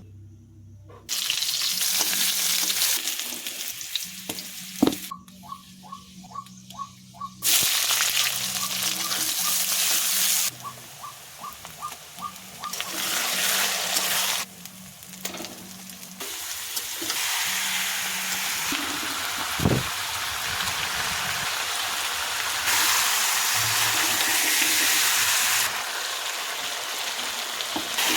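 Food sizzling and frying in a hot pan as it is stirred, in a string of short sections that change abruptly.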